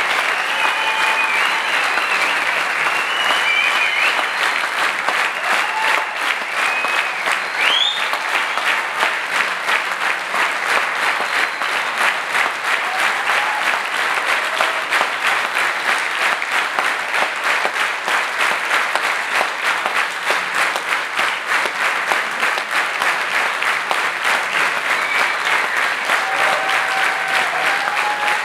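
Concert audience applauding steadily, with a few high whistles in the first several seconds and cheering voices near the end.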